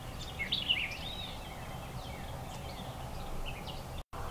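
Several songbirds chirping and whistling in short calls, with a flurry of louder calls about half a second in, over a steady low background noise. The sound drops out briefly near the end.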